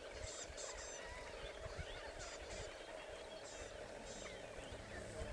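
Wild dogs twittering while feeding: high, bird-like chirps and squeaks in short clusters, over a steady low hum.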